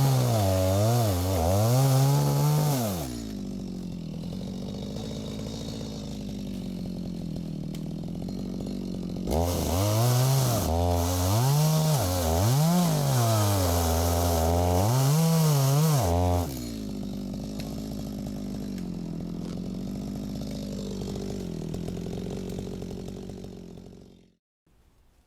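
Stihl MS 250 two-stroke chainsaw at full throttle cutting wood, its pitch dipping and rising again and again under the load. It drops to idle about three seconds in, goes back to full throttle for about seven seconds, idles again, and cuts out shortly before the end.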